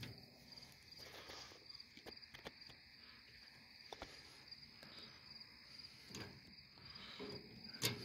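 Faint, steady high trill of crickets chirping, with a few soft clicks and taps scattered through it and one sharper click near the end.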